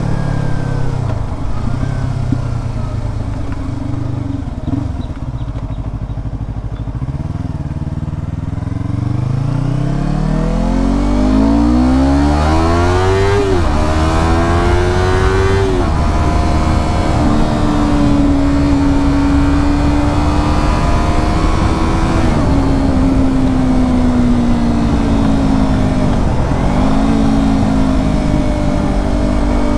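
Yamaha R25's parallel-twin engine through a Proliner TR1R slip-on exhaust: low revs at first, then rising revs with two sharp drops in pitch like upshifts around the middle, then running at fairly steady revs.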